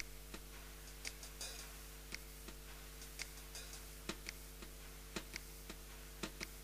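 Faint, irregular clicks or ticks, about one or two a second, over a steady low hum.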